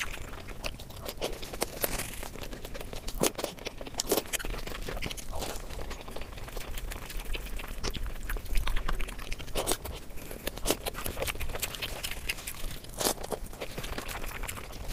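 Close-miked eating: a woman chewing a handful of fried rice and gravy-soaked food, with wet mouth smacks and irregular clicks.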